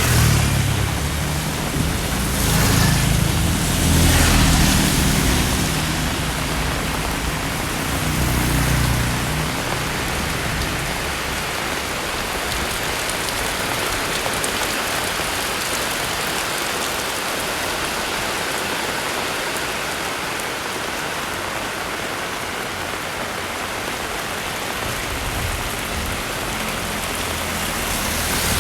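Heavy rain falling steadily, a dense even hiss. Low rumbling comes and goes during the first several seconds and again near the end.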